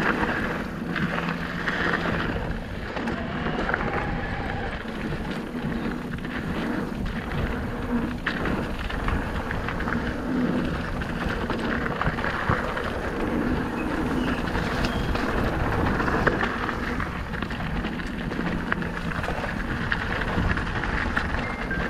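Merida eOne-Sixty 800 electric mountain bike rolling fast down a dirt and gravel trail: a steady noise of the tyres on loose gravel, with frequent clicks and knocks as the bike rattles over bumps.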